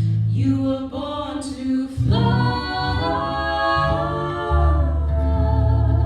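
Voices singing a folk song in harmony, with low notes held steadily underneath.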